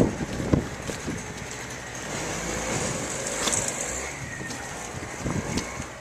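A motor vehicle passing on a snow-covered street, its hiss swelling about halfway through and fading away again. Wind buffets the microphone at the start.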